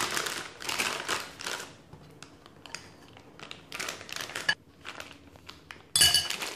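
Plastic piping bag crinkling as it is handled and filled with cream, with a metal spoon scraping against a glass bowl; a loud ringing clink of the spoon on the bowl near the end.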